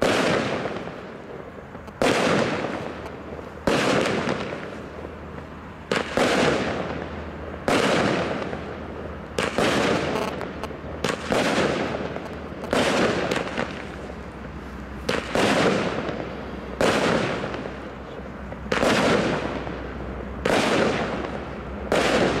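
25-shot firework barrage cake firing shot after shot: comet-tailed shells breaking into peonies with loud reports. Sharp bangs come about every one and a half to two seconds, each dying away in a long echoing tail.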